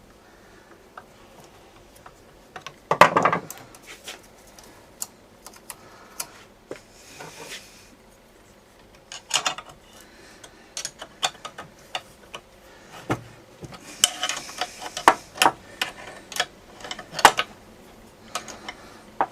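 Scattered metallic clicks, taps and clatter of hands and tools working on a 1974 Homelite XL-12 chainsaw, with a louder short scraping clunk about three seconds in and a busier run of clicks near the end. The saw's engine is not running.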